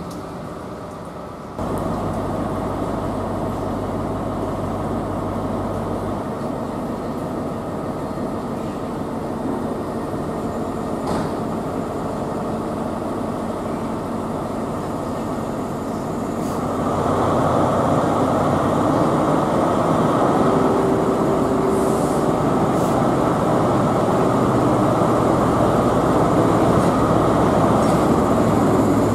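Class 43 HST power car's diesel engine running as the train rolls slowly into the platform, getting louder about halfway through as it draws nearer.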